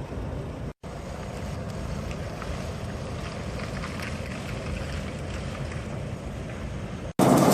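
A vehicle engine running with a low, steady rumble, mixed with wind noise on the microphone; the sound drops out briefly just under a second in.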